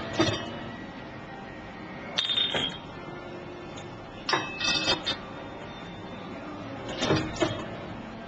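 Semi-automatic bottle capper working through glass bottles: four short bursts of mechanical clacking and glass clinking, about every two and a half seconds, over a steady background hum.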